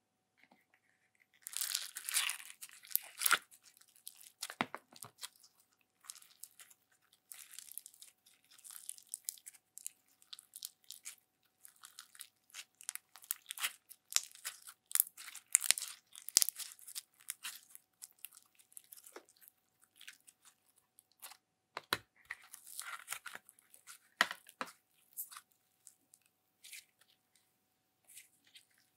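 Glittery slime squeezed, kneaded and stretched by hand, making irregular sticky crackles and small pops in loose clusters, with the busiest stretches about two seconds in and again around the middle and near twenty-two seconds.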